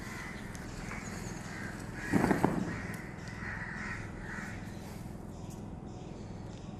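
Crows cawing repeatedly, with one louder, lower burst of sound about two seconds in.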